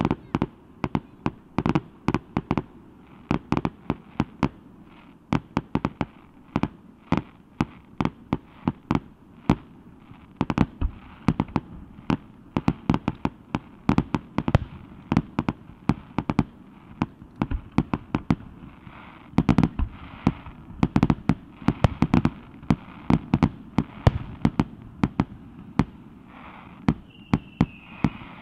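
Fireworks going off in a rapid, unbroken string of sharp bangs, several a second, thickest about two-thirds of the way through. A short falling whistle sounds near the end.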